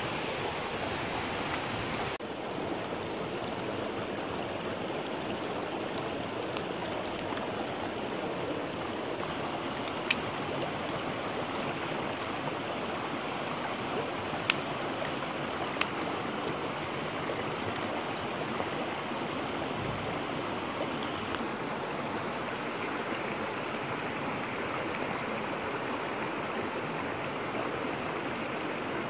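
Shallow stream running over stones, a steady rush of water, with a few short sharp clicks near the middle.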